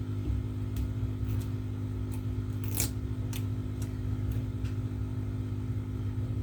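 A series of light clicks and scratches from hands working on the opened tablet around its glued-in battery, about ten in all, the loudest a little under three seconds in, over a steady low electrical hum.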